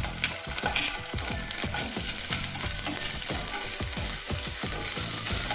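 Onion-tomato masala sizzling in ghee in a kadai while a spatula stirs in freshly added chili powder, turmeric and ginger paste, scraping the pan in many quick strokes.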